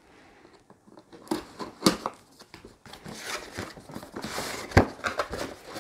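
Cardboard product box being opened by hand: a couple of sharp snaps and knocks, then the lid and packing scraping and rustling for a second or two, ending on a sharp snap near the end.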